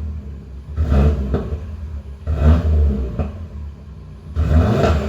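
Audi RS3's 2.5-litre turbocharged five-cylinder engine blipped three times from idle through an AWE Switchpath exhaust in Dynamic mode, each rev rising and falling back to idle.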